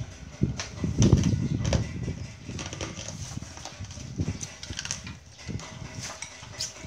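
Eating at a table: a spoon and dishes clinking and knocking, with a louder low knock about a second in and faint voices in the background.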